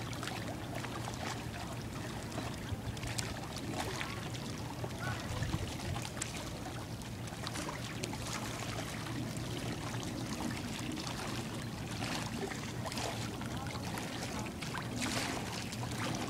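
Small waves lapping and splashing irregularly against shoreline rocks, a steady wash of water with frequent little splashes.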